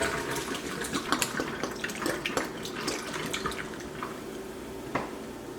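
Water splashing and dripping in irregular strokes, busiest over the first four seconds and thinning out near the end, as water is emptied from or run into plastic bottles.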